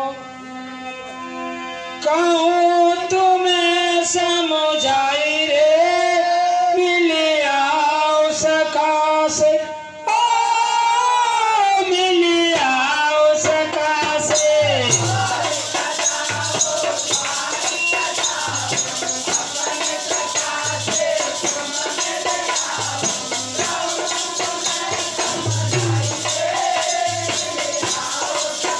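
Live Hindi folk singing: a man sings long, drawn-out melodic lines over a harmonium. About halfway through, fast jingling rattle percussion and drum beats come in and keep a quick rhythm under the singing.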